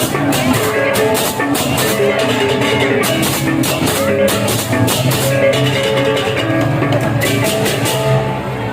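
Balinese gamelan playing: ringing metallophone notes over drums, with quick, loud clashing cymbal strokes that stop near the end.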